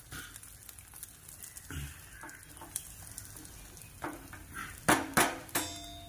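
Flat metal spatula scraping and tapping on a non-stick frying pan as it works around a flipped egg-and-parotta cake that is frying. Near the end come three louder metal clanks, the last leaving a ringing tone.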